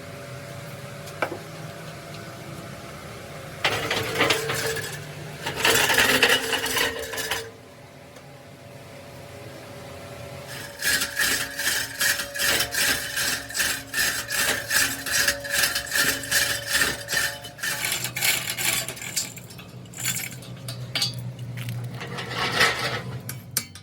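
Hand tools working metal: scattered clanks, then a long run of quick, regular metal-on-metal strokes, about three a second, with a ringing tone under them.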